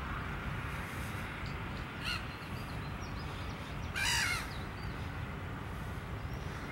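Gulls calling over a lake: a short call about two seconds in, then a louder, harsh call about four seconds in, over steady low background noise.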